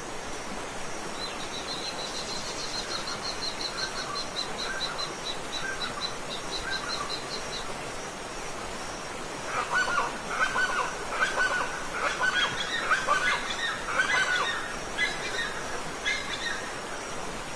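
Steady rush of a waterfall with birds calling over it: a fast trill of high repeated notes in the first half, then a louder run of lower bird calls, several a second, through the second half.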